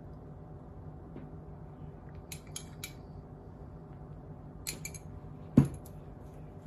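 Kitchen handling sounds while a taco is being assembled: three quick light clicks about two seconds in, a few more about a second later, then a single louder knock near the end.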